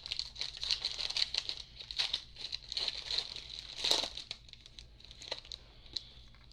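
Crinkly foil wrapper of a baseball card pack being torn open and crumpled by hand. The crackling is dense for the first four seconds or so, then dies down to a few scattered crinkles.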